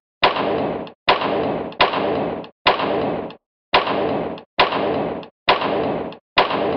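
A string of about eight harsh, noisy sound-effect bursts, each just under a second long, each starting with a sharp crack and cutting off abruptly, with short gaps between them.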